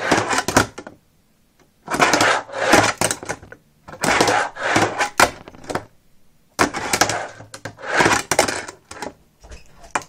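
Fingerboard wheels rolling and the board clacking on a Tech Deck quarter-pipe ramp, in about six quick runs and tricks of roughly a second each, with short pauses between them.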